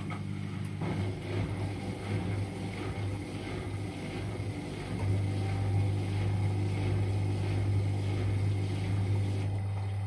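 Indesit IWDD7143 washer dryer on its cotton tumble-dry programme, the drum motor running with a steady hum while laundry tumbles in the drum. It gets louder about halfway through.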